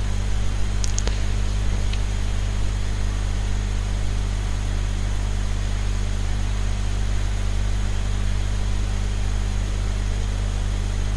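Steady low electrical-sounding hum over even hiss, with a couple of faint clicks about a second in.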